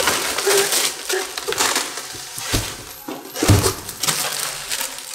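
Cardboard box and packaging being handled, with irregular crackling and rustling and two dull knocks about halfway through.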